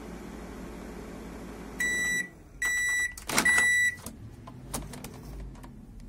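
Daewoo KOR-631G microwave oven humming as it heats, running through to the end of its countdown; the hum stops about two seconds in, and the oven gives three high beeps to signal that cooking is done, with a sharp click during the third. A few light clicks near the end are the door latch opening.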